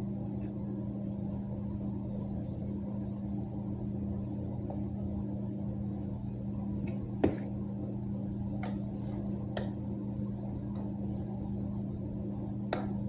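A steady low hum in a kitchen, with a few sharp clinks of kitchenware against a pot, the loudest about seven seconds in.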